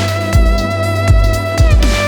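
Background music: long held string-like tones over a deep electronic beat.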